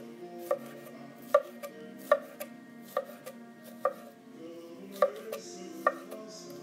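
Chef's knife slicing bell pepper into strips on a wooden cutting board: a sharp knock of the blade on the board roughly once a second, about eight strikes.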